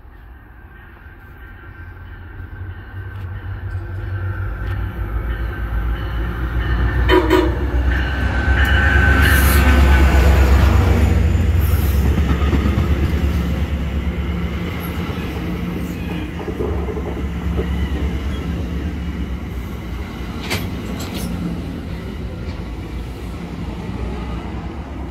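MARC commuter train pulling in and slowing past the platform. A deep rumble builds to its loudest about ten seconds in as the head of the train goes by, with a short horn blast shortly before. The bilevel coaches then roll by more quietly, slowing, over a steady low hum.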